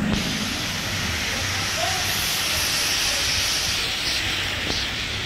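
Steady hiss of a rainy street, with rain and wet pavement noise filling the upper range.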